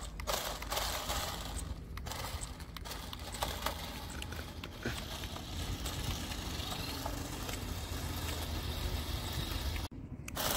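A 1:16-scale toy RC stunt car driving on concrete: its small battery-powered electric motors whirring and its plastic wheels rolling and scraping over the ground, with a few scattered clicks and rattles.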